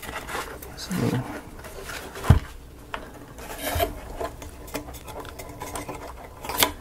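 Small model pieces being handled and fitted by hand: light rubbing and scraping with a few sharp clicks, the sharpest about two seconds in and another near the end.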